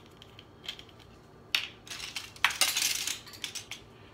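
Metal measuring spoons clinking and rattling together while a teaspoon is picked out, with a few light clicks, a sharp rattle about a second and a half in and the loudest jingling clatter just before the three-second mark.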